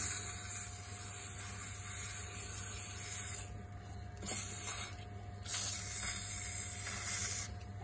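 Würth aerosol spray can hissing through its extension straw in three bursts: a long one of about three and a half seconds, a short one about a second later, then another of about two seconds. It is spraying into the cylinder bore around a stuck piston.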